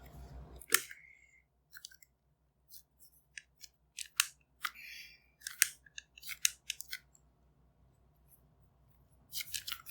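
Plastic parts of a replacement headband on Bose QC-15 headphones being handled: scattered sharp clicks with a brief light rustle in the middle, a quiet spell, then a quick cluster of clicks near the end.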